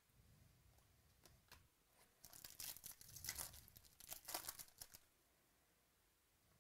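Foil wrapper of a Bowman Chrome baseball card pack being torn open and crumpled: a crackling rustle from about two seconds in until about five seconds in, after a couple of soft clicks.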